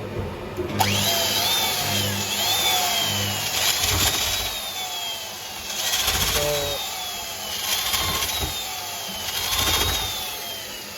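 Electric hand drill boring out a camshaft cap bolt hole in a cylinder head with an 8 mm bit. It runs in about six short spurts, its whine rising quickly each time and then falling slowly under load, over a grinding hiss.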